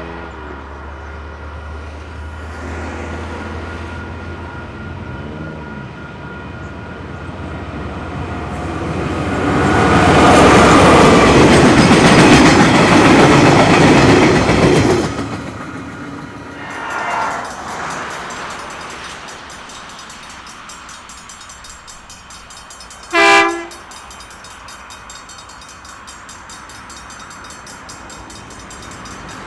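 A train passing close by: a low rumble builds to a loud rush of noise for about five seconds in the middle, then fades. Near the end, one short, loud blast of a train horn.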